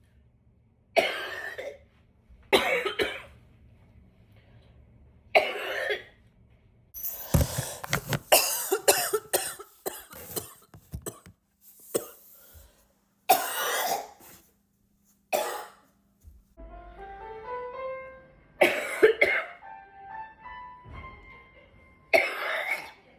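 Coughing, one short cough after another with pauses of a second or two, and a fast run of coughs about a third of the way in. About two-thirds of the way through, music with rising notes starts under two more coughs.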